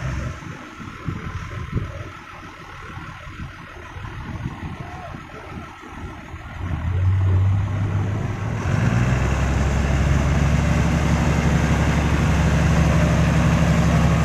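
Diesel engine of an Isuzu Deca dump truck stuck in mud, running low for the first few seconds. About seven seconds in it is revved up, and from about nine seconds it holds a loud, steady drone as the driver works the truck to get it free.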